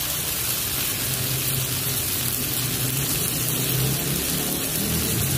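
Tomato sauce cooking in an aluminium wok, sizzling with a steady hiss; a low rumble that comes and goes sits underneath.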